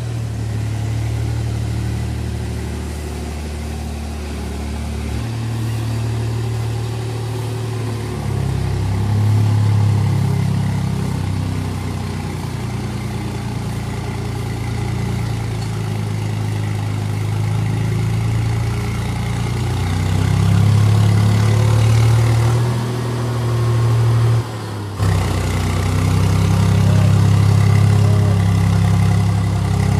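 Swaraj 834 XM tractor's three-cylinder diesel engine running under load as it pulls an implement through deep wet mud, its note rising and falling a few times. A short break in the sound comes about three-quarters of the way through.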